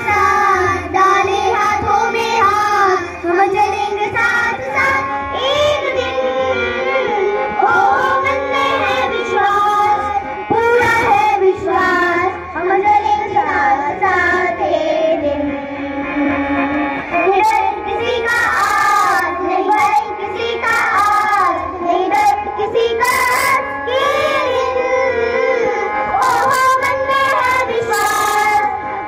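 Children singing a song with musical accompaniment.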